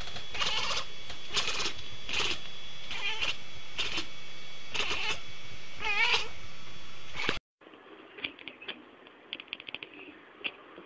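Cats meowing loudly, about eight drawn-out yowling meows less than a second apart, the last one wavering in pitch. After a sudden cut near the end, a cat makes faint, rapid clicking chatter.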